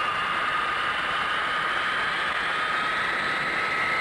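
Jet whine and rush of the four turbojets of the Boeing Dash 80 prototype at takeoff power, the whine climbing slowly in pitch as the engines spool up on the takeoff run.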